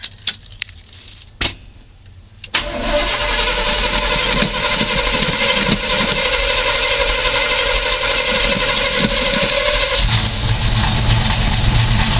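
A few clicks, then about two and a half seconds in an old truck's engine comes to life on a cold start with ether starting fluid, after sitting unused a long while. It runs loudly with a steady whine over it; about ten seconds in the whine stops and the engine settles into a deeper, lower running sound.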